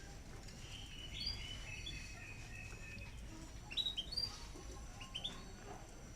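Caged songbird chirping: a run of high warbling notes about a second in, then quick sharp chirps near the middle and again about five seconds in.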